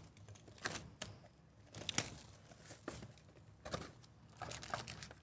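Cardboard trading-card box being opened by hand and its wrapped card packs pulled out: a string of short crinkles, scrapes and small tearing sounds.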